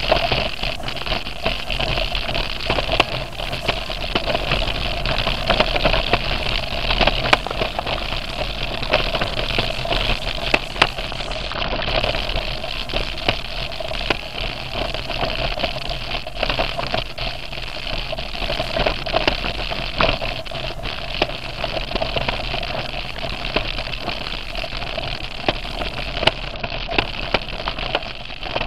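Mountain bike riding down rocky singletrack, heard through the rider's camera: steady rolling and wind noise with frequent clicks and rattles as the wheels run over loose stones.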